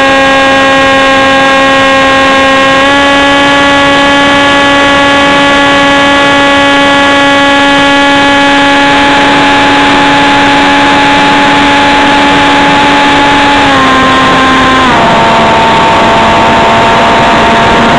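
The 330-watt electric motor and propeller of an RC flying wing, whining steadily under power, heard from the onboard camera. The pitch steps up slightly about three seconds in, then drops in two steps near the end.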